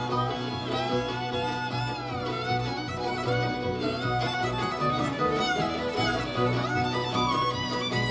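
Bluegrass band playing an instrumental break, a fiddle taking the lead with sliding notes over the steady rhythm of the band.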